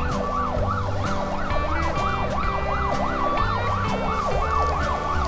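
A siren-like warbling tone, several pitches sweeping up and down about four times a second over a steady high note and a low pulse.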